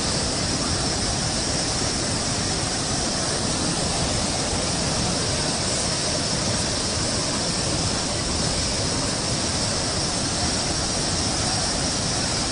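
Muddy floodwater of a swollen mountain river rushing past in a steady, unbroken torrent.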